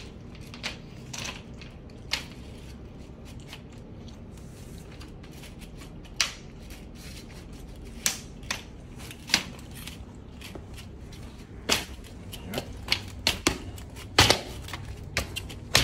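Interlocking plastic Air Drain turf-base grid tiles clicking and snapping as they are pressed down and locked together on a hard tile floor: scattered sharp clicks, coming thicker near the end.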